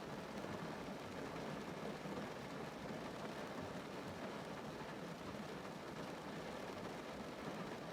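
Rain falling on a car's roof and windows, heard from inside the cabin as a steady, even patter.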